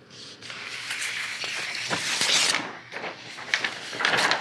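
Sheets of printed paper rustling and sliding as one page is swapped for the next, with a few sharp crinkles near the end.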